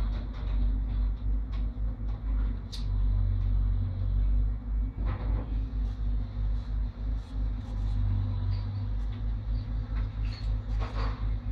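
Diesel engines of backhoe loaders and a wheeled excavator running close by, a deep steady rumble whose loudness pulses rapidly, with a few short knocks from the digging.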